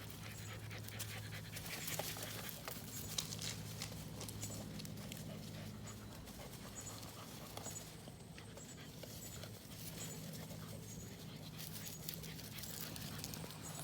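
Bulldog puppy panting and breathing steadily, with scattered small crackles throughout.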